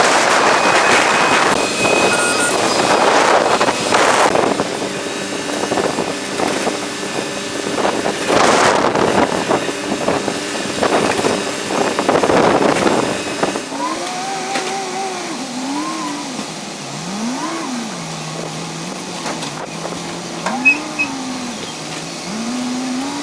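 Heavy diesel construction machinery, excavators, working: loud, uneven noise with repeated surges, then after a sudden change an engine whose pitch rises and falls again and again as it revs up and settles.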